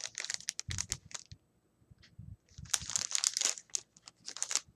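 Plastic packaging crinkling and rustling as packets of craft flowers are handled, in two spells with a quiet gap of about a second between them.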